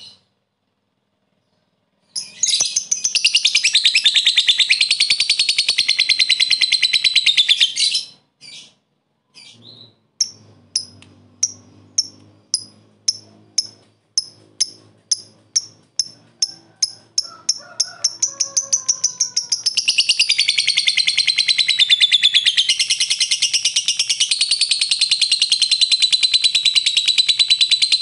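Lovebird singing its 'ngekek', a long, fast, high chattering trill. A first long chatter breaks off after about six seconds; then it gives separate sharp 'ngetik' ticking chirps that speed up and run into a second long chatter.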